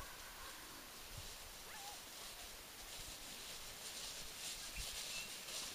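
Faint outdoor ambience, with footsteps swishing through tall grass becoming audible about halfway in, a few rustling strides a second.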